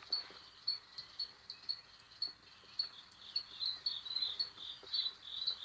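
Crickets chirping, a high chirp about three times a second, with a second, slightly lower-pitched cricket joining in about three and a half seconds in.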